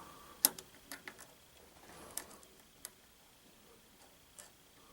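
Handling noise: a few light, sharp clicks and taps, the sharpest about half a second in, as multimeter probes are held against a water heater's thermostat terminals.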